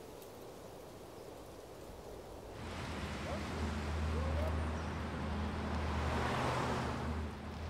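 Faint steady street background, then a car driving past close by from about two and a half seconds in, its engine hum and tyre noise swelling and easing off near the end.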